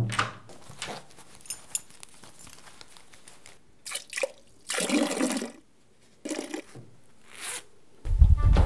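Scattered wet splashing and dripping sounds into a toilet, the longest lasting about half a second about five seconds in. Music with a deep bass comes in near the end.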